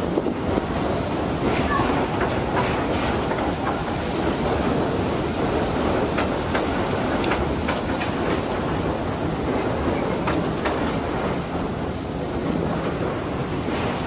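NYC Subway R160 D train running on the elevated steel structure overhead: a steady rumble of wheels on rail, with scattered clicks as the wheels pass over rail joints.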